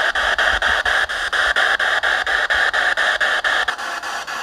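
Small portable radio used as a spirit box, sweeping through stations: a steady hiss of static cut into short chops about five times a second. Near the end the static turns quieter.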